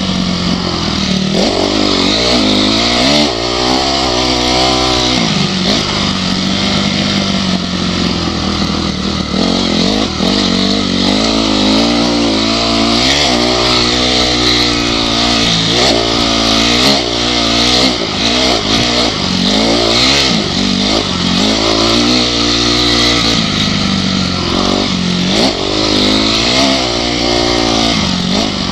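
Motocross bike engine being raced, its pitch climbing and dropping over and over as the rider opens and closes the throttle and shifts.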